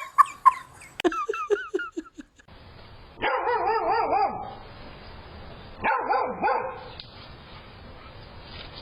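A dog barks in a quick run of short, high yips. Then come two longer wavering calls, the first a second and a half long and the second shorter.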